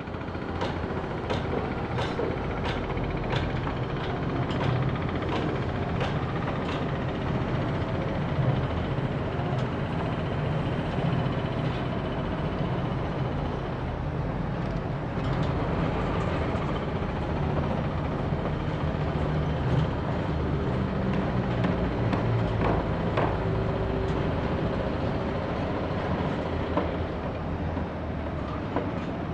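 Construction site ambience: a steady engine drone from machinery with repeated sharp knocks, about two a second over the first several seconds, then scattered knocks.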